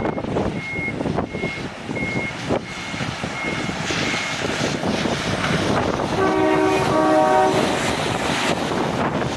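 Decorated truck driving past, sounding its multi-tone air horn (rappa) in a few short chord-like blasts about six seconds in. Before that, a high electronic warning beep repeats about every two thirds of a second and stops about four seconds in.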